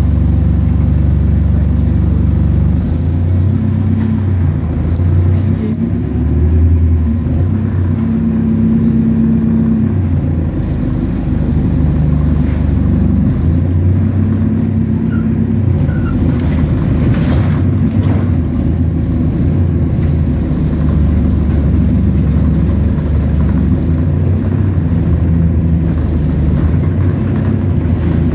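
Abellio London double-deck bus engine running under way, a loud, steady low engine note whose pitch shifts up and down in steps as it changes gear.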